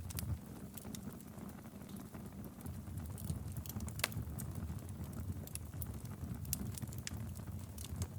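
Wood fire burning in a fireplace: a low rumble of flames with scattered crackles and pops, one sharper pop about four seconds in.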